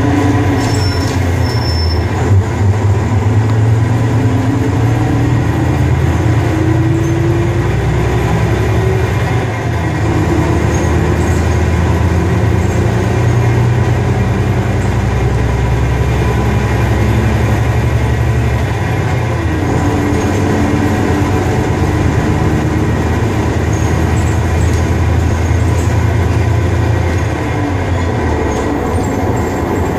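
Inside a 1998 Ikarus 280.33O articulated diesel bus on the move: steady engine drone and body rattle, the engine note climbing several times as the bus accelerates and dropping near the end.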